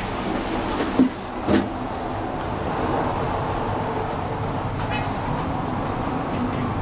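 Steady running noise inside a moving aerial-tramway gondola cabin, with two short knocks about a second in.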